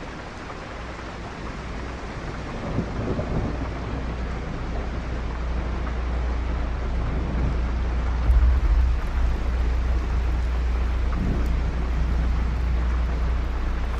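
Steady rushing noise like heavy rain over a deep thunder-like rumble, growing slowly louder, with a stronger swell about eight seconds in.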